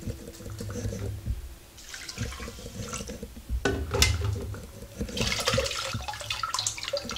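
Water sloshing and pouring as soaked foxtail millet and moong dal are swirled by hand in a steel bowl and tipped into a second steel bowl, rinsing the grain so that grit and stones settle out. There is a sharp knock about four seconds in.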